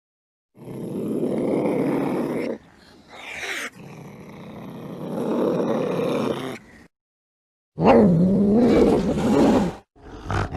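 Cats yowling and growling in a series of long, drawn-out calls with short silences between them. One call rises in pitch partway through.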